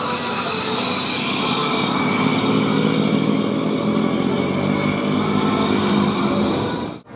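A road vehicle's engine running close by, with steady road and tyre noise; the sound cuts off abruptly near the end.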